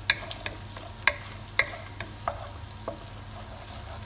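Sliced garlic and butter sizzling in a saucepan as they brown, with a wooden spoon stirring and knocking against the pan at uneven intervals.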